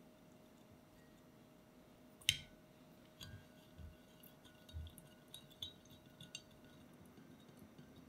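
One sharp clink about two seconds in. Then a spatula stirs sugar and salt into cold water in a measuring jug, making light scattered ticks, taps and soft knocks against the jug.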